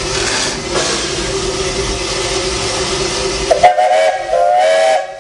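Steam locomotive's whistle blowing two blasts about three and a half seconds in, the second a little longer, over the steady hiss and rumble of the locomotive.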